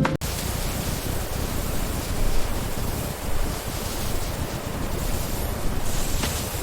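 Steady rushing noise with no tone or rhythm, cutting in abruptly as music stops just after the start.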